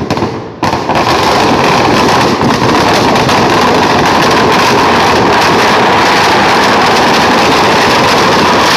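Firecrackers packed inside a burning Ravana effigy going off in a dense, continuous crackle, starting about half a second in and staying very loud and even.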